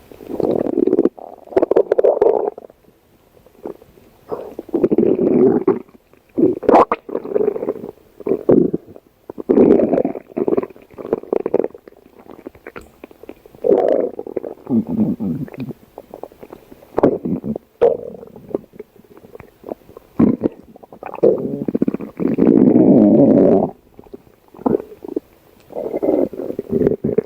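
A person's stomach growling and gurgling in a long run of irregular rumbles. Some rumbles are short, others last a couple of seconds, with brief pauses and a few sharp pops between them.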